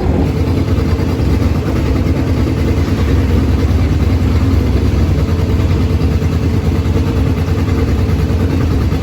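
Vintage racing car engine running at a steady idle, a loud even low rumble with no revving.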